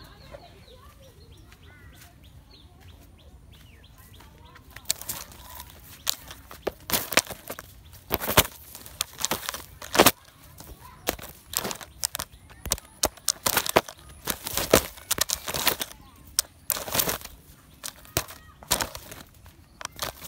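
Chickens flapping their wings, many loud irregular flaps and rustles from about five seconds in, after a few seconds of faint chirps.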